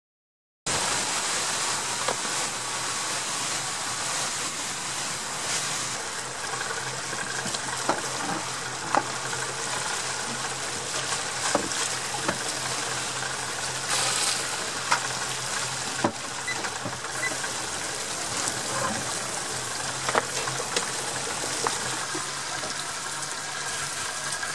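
Steady rush of water along a moving boat's hull with a low engine hum underneath, cutting in suddenly about a second in, with a few short sharp knocks or splashes scattered through it.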